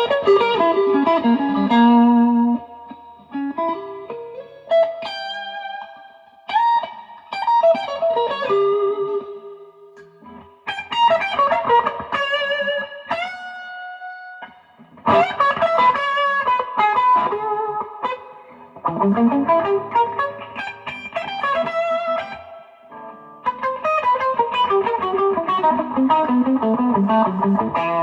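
Electric guitar played through a Fender Blues Junior tube combo amp: single-note lead phrases with slides and held bent notes, separated by short pauses.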